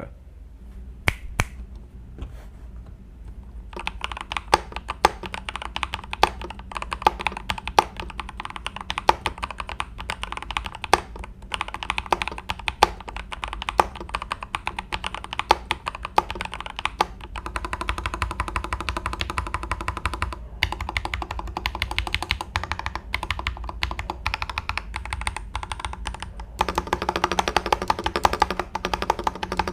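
Typing test on a budget gasket-mounted snap-fit mechanical keyboard, built with mixed Kang White, Radiant Red and Cream Yellow switches and plain black-and-white keycaps, in its stock sound with the stock foam. A few scattered keystrokes at first, then steady fast typing clatter that grows denser and louder near the end.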